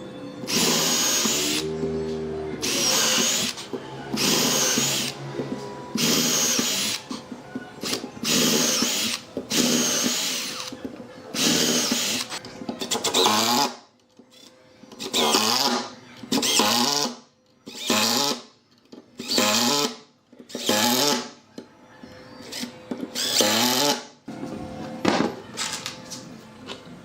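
Handheld electric power tool motor, drill-like, run in repeated short bursts of about a second each, some spinning up with a rising whine.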